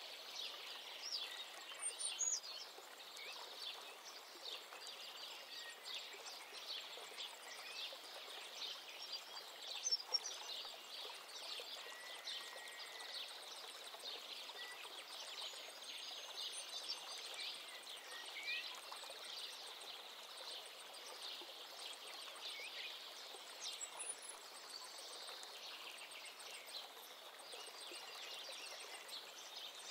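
Birds chirping and calling intermittently over a steady, faint outdoor hiss, with a few brief sharper noises, the loudest about ten seconds in.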